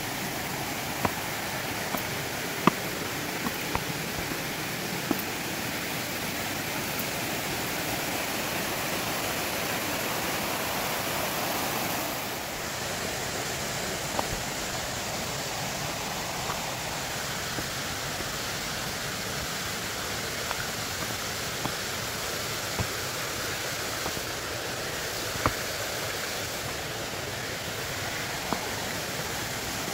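Steady rush of moving water, with scattered sharp clicks and ticks over it.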